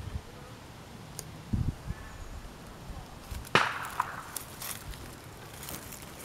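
A single sharp snap about halfway through, the loudest sound, ringing briefly, with a couple of dull thumps before it and a few smaller clicks after.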